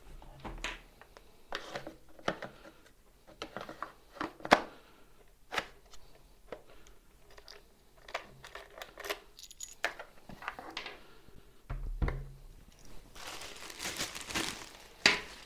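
Hands handling a hard-plastic e-bike battery and its mounting tray on a table: scattered clicks and knocks, one sharp knock about four and a half seconds in the loudest. Near the end a plastic bag crinkles for a couple of seconds.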